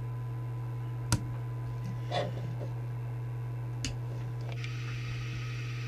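Steady electrical hum from the bench setup, with a faint thin steady tone above it, broken by a few light clicks about one, two and four seconds in.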